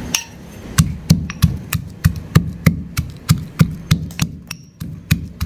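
Stone pestle pounding peeled garlic cloves in a green stone mortar, crushing them to a coarse paste: steady dull thuds about three a second, with a brief pause near the end.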